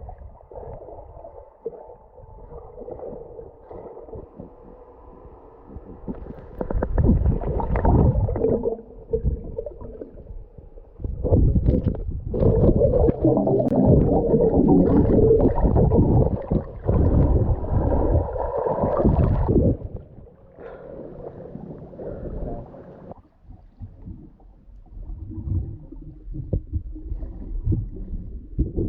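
Muffled underwater sound of water bubbling and churning around a submerged microphone, swelling in surges about seven seconds in and again from about eleven to twenty seconds.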